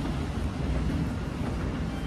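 Hitachi escalator running, a steady low rumble heard at its top landing.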